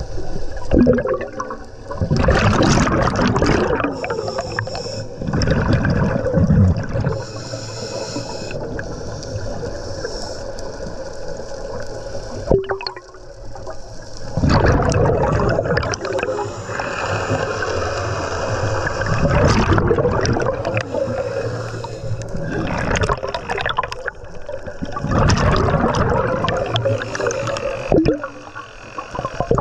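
Scuba diver breathing through a regulator underwater: exhaled bubbles rush and gurgle past every few seconds, with quieter stretches between breaths.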